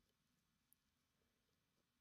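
Near silence: faint hiss, with one very faint, short high tick a little under a second in.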